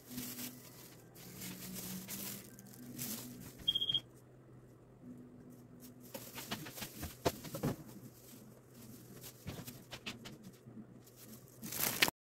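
Scattered small clicks and rustles over a faint low hum, with a brief high beep about four seconds in and a loud rustle of the phone being handled near the end.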